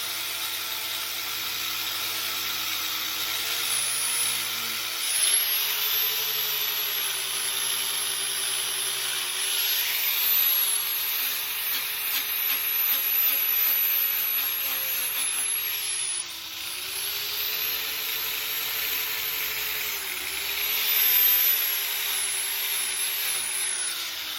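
Angle grinder grinding paint off a steel door hinge. The motor whine sags in pitch each time it is pressed into the work, then recovers, and the grinding noise rises and falls with the pressure. Near the end the motor begins to wind down.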